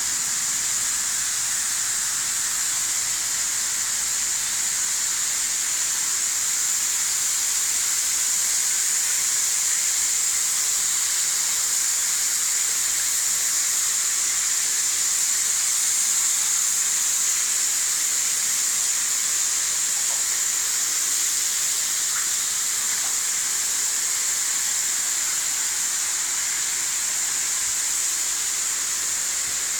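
Water jetting steadily from a pipe outlet onto a floor already under standing water, a constant hiss, as the kitchen floor is flooded for a leak test.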